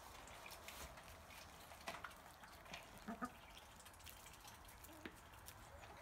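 Near silence with a few faint, short sounds from hens feeding: scattered pecks and a brief soft cluck about halfway through.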